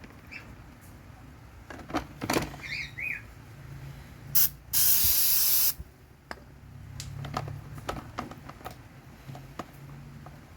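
Aerosol cleaner sprayed into a throttle body to decarbonise it: a brief hiss about four seconds in, then a steady spray lasting about a second, among scattered clicks and knocks.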